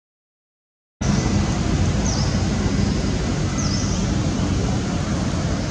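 Outdoor ambience that starts suddenly about a second in: a steady rumbling noise, heaviest in the low range, with a short high chirp repeated about every second and a half.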